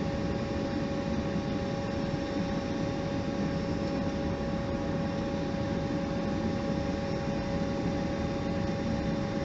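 Steady flight-deck noise inside a Boeing 737 on approach: an even rush of airflow and engine noise with a faint steady hum of a few tones over it.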